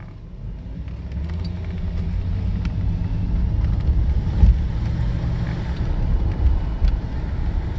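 Inside the cabin, a Mercedes 560SEL's V8 pulls away under acceleration, with engine and road rumble building over the first few seconds and then holding steady. There is a single short thump about four and a half seconds in.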